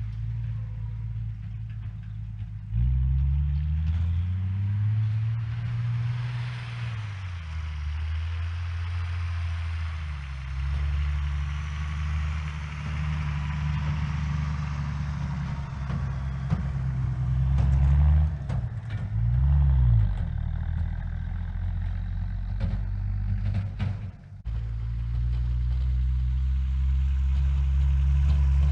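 1966 Ford F-250 pickup's engine running as the truck is driven, revving up and down several times with a quick blip of the throttle about two-thirds of the way through. A steady hissing rush sits under the engine through the middle stretch.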